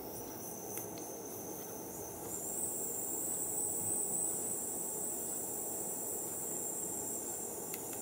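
5V ultrasonic mist-maker (humidifier) module running in a tub of water, giving a steady high-pitched whine that jumps higher and louder about two seconds in, over a low steady hiss.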